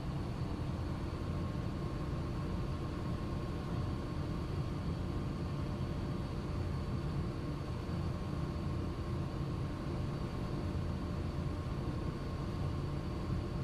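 Steady drone of a ship's engine-room machinery: a heavy low rumble with a constant hiss and a few steady whining tones, unchanging throughout.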